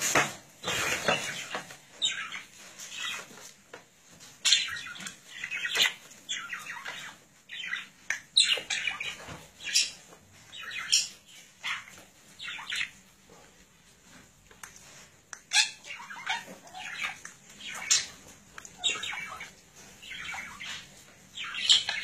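Budgerigar chirping and squawking in short, irregular bursts.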